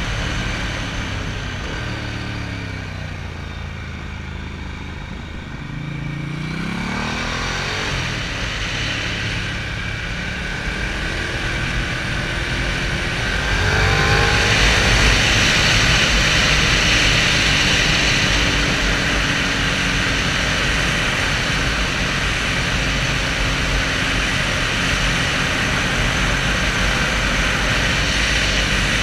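Motorcycle engine heard through a helmet-mounted camera: its pitch falls as the bike slows over the first few seconds, then rises as it accelerates again. From about halfway in, a loud rush of wind over the microphone covers much of the engine.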